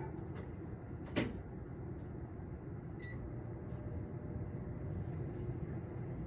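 A dog barking outdoors: one sharp, loud bark about a second in and a fainter short one about three seconds in, over a steady low background rumble.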